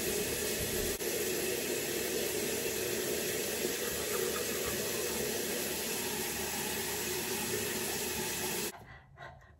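Bathroom sink tap running steadily into the basin, stopping abruptly near the end.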